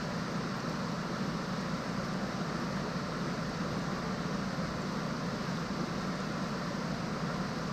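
A machine running steadily: an even whirring hiss over a low hum, with no change in pitch or level.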